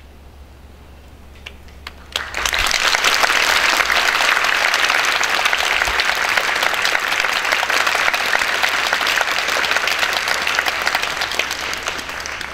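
Audience applauding: a few scattered claps in a brief hush, then full, steady applause from about two seconds in, easing off near the end.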